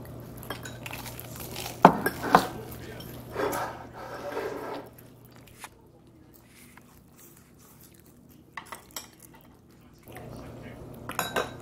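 Ceramic tableware and chopsticks clinking during a meal: two sharp knocks of dish on dish about two seconds in, then lighter taps and scrapes of chopsticks on a plate, with a few more clinks near the end.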